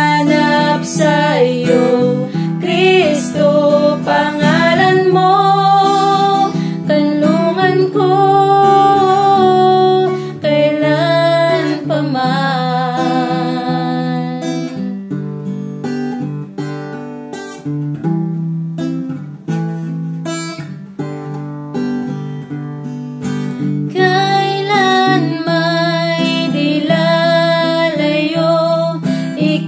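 Two women singing a Tagalog worship song together to a strummed acoustic guitar. The singing quietens for a stretch midway, leaving mostly the guitar, then comes back in.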